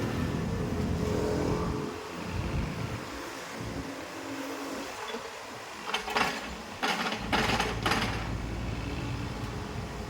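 Excavator's diesel engine running as it digs soil, its low rumble easing off after about two seconds and coming back strongly a little past the middle. There are a few short rushing bursts of noise in between.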